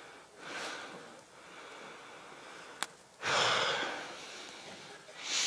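Gusts of air being fanned or blown onto a smouldering campfire, heard as a few breathy whooshes, the loudest lasting about a second just past the middle. A single sharp click comes just before it.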